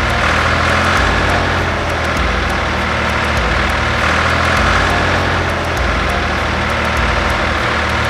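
Tractor engine sound effect running steadily at a constant, loud level, a low rumble under a rough hiss.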